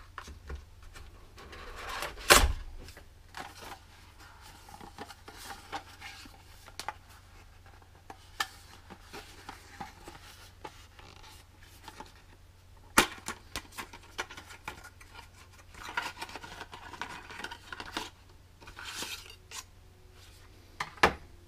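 Packaging of a motor kit handled by hand: scattered clicks and knocks of a cardboard box and its plastic tray, with bouts of rustling. The loudest knock comes about two and a half seconds in, another sharp one about thirteen seconds in.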